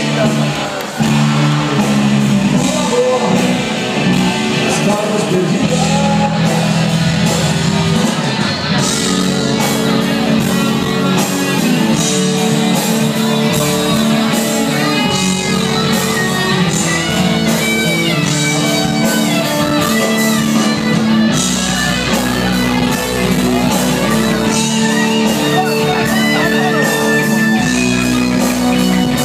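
Live rock band playing through a concert PA: amplified guitar, bass and drums with a steady beat.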